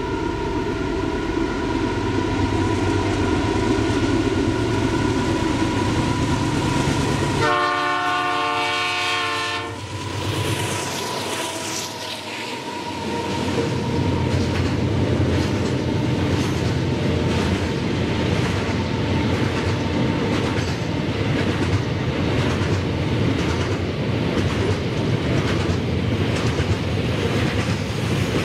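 Diesel freight locomotives approach and pass close by, engines running, and give one horn blast of about two and a half seconds around a third of the way in. Then the long train of container wagons rolls past with a steady, rhythmic clatter of wheels on the rails.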